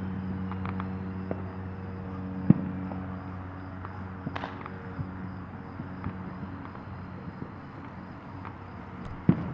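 Distant fireworks going off: two sharp bangs, one about two and a half seconds in and a louder one near the end, with a few faint pops between. Under them a low engine hum slowly fades, and crickets chirp steadily.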